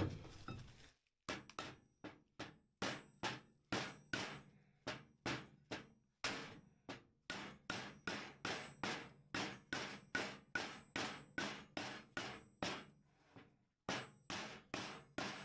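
Hammer tapping a clutch helix into the newly fitted bushing of a Polaris snowmobile's secondary clutch sheave: steady strikes about two a second, with a short pause near the end.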